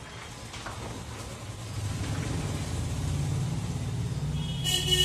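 Low rumble of a vehicle engine running close by, growing louder about two seconds in, with a horn sounding briefly near the end.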